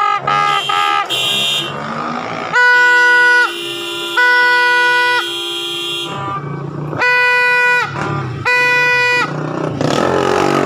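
Vehicle horns honking in four long blasts of about a second each. A second, lower horn is held steady under the first two blasts.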